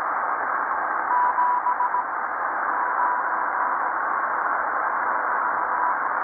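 Tecsun PL-330 shortwave radio tuned to the 40 metre band in sideband mode: a steady hiss of band noise with a thin beeping tone keyed on and off through it, perhaps Morse code. The clearest run of short and long beeps comes about a second in, and the tone is fainter later on.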